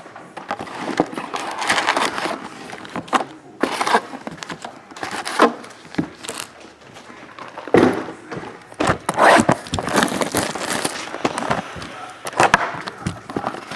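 Cardboard hobby box of trading card packs being opened and emptied by hand: packs and box flaps scraping, rustling and knocking against each other in irregular bursts.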